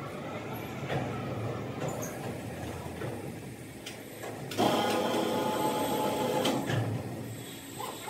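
Sawmill machinery running with a low rumble and clatter, and a louder, steady whining sound for about two seconds in the middle.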